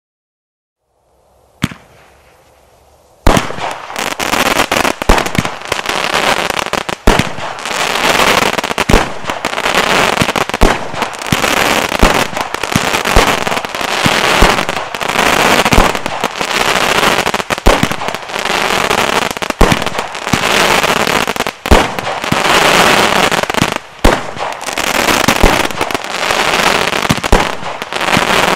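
A TNT Thunderbore 60-shot firework cake firing. After a faint hiss and a single crack, a rapid barrage starts about three seconds in: sharp bangs every second or so over dense, continuous crackling.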